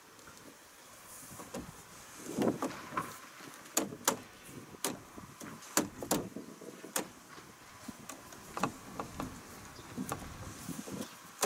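Irregular sharp clicks and knocks as plastic-coated Erector pipes, plastic joints and a cable tie are handled and adjusted, some in quick pairs, over faint rustling.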